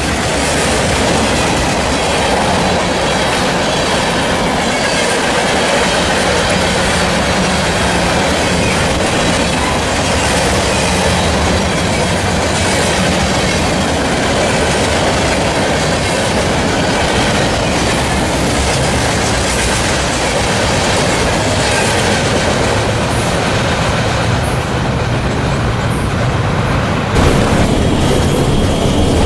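Freight train's boxcars rolling past close by: a steady, loud clatter of steel wheels over the rails. About two seconds before the end the sound cuts abruptly to a different, slightly louder steady rumble.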